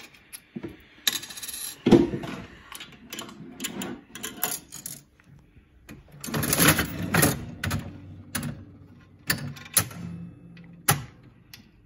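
Jennings Governor mechanical slot machine being played: coins clinking and dropping in, the handle worked, and a run of metallic clicks and clunks from the mechanism and reels, with a short whirr about a second in and a louder clatter about six seconds in.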